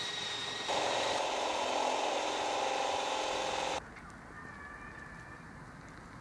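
Cordless drill motor running steadily while working on a step made of wooden decking boards, louder about a second in. It cuts off abruptly after about four seconds, leaving a quiet outdoor background.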